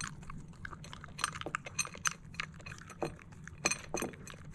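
A dog eating dry kibble from a bowl with a silicone slow-feeder insert: irregular crunching and clicking, several bites a second, as she works the pieces out of the compartments one at a time.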